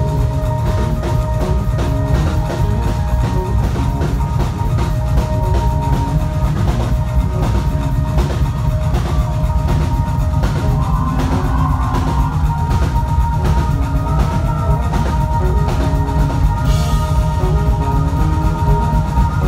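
Live band music played through a club PA: a drum kit keeps a steady beat over heavy bass, with long held keyboard notes and electric guitar.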